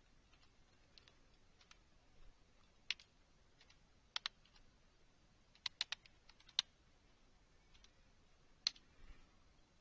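Computer keyboard being typed on slowly: a dozen or so faint, separate key clicks at irregular intervals, with a quick cluster of several keystrokes just before the middle.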